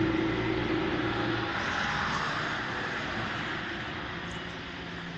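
A motor vehicle's engine passing and fading steadily away, its low hum dying out in the first second and a half while a broader rushing noise trails off.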